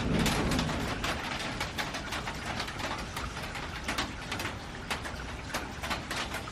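Rain pattering on a metal roof, with sharp ticks of individual drops throughout. The low rumble of thunder dies away in the first second.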